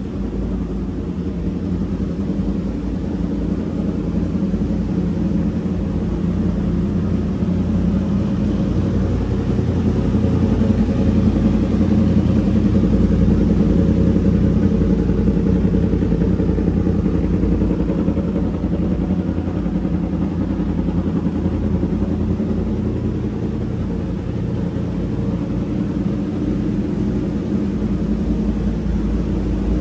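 Yamaha crossplane inline-four motorcycle engine idling steadily through an SC Project aftermarket exhaust, a little louder around the middle.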